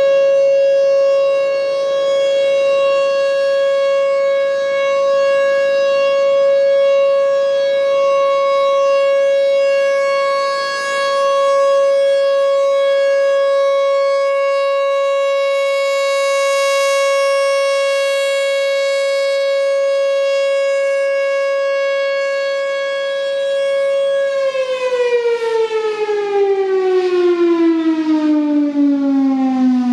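Federal Sign & Signal Thunderbolt 1000 mechanical outdoor warning siren sounding its Alert signal: one loud, steady wailing tone. About six seconds before the end it starts winding down, the pitch falling steadily and the sound turning choppy.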